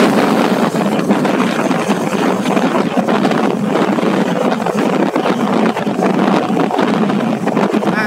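Steady rush of wind buffeting the microphone, mixed with engine and road noise from riding along a road at speed.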